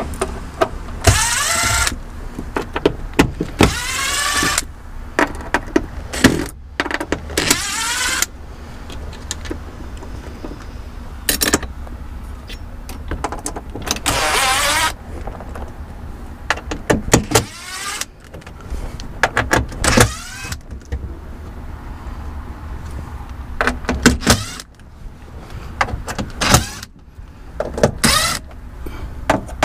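Cordless power driver backing out the screws of a hybrid battery pack cover, running in a series of short bursts, about ten of them, its motor whine rising and falling with each screw.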